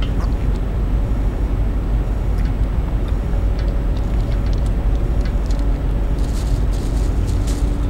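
Steady low outdoor rumble with a faint steady hum and a few light ticks.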